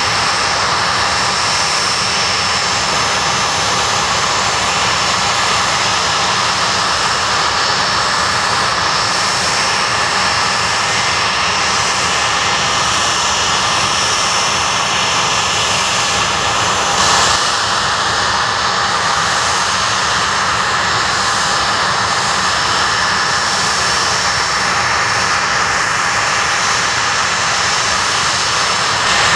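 Blackburn Buccaneer's twin jet engines running steadily at low power, a constant rushing noise with a high whine over it.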